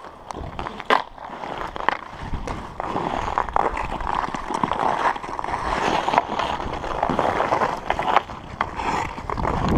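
Hockey skate blades scraping and gliding on outdoor rink ice, with a few sharp clacks of a hockey stick on the puck in the first second or so. From about two seconds in, a steady rushing rumble of wind on the helmet-mounted microphone grows as the skater picks up speed.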